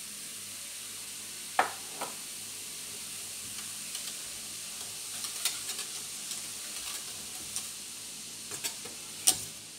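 Wire whisk stirring a stainless steel pot of bicarbonate of soda solution that fizzes with a steady hiss as citric acid is sprinkled in: the acid reacting with the soda and foaming. Sharp clicks against the pot, the loudest about one and a half seconds in and near the end.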